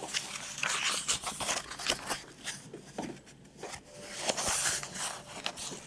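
Pages of a book being leafed through, with paper rustling and scattered light clicks and knocks of handling.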